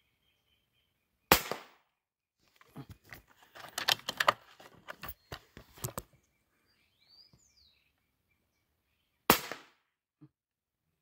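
Two rifle shots about eight seconds apart, each a sharp crack with a short tail, the first about a second in and the second near the end. Between them comes a run of clicks and knocks, and a bird chirps faintly.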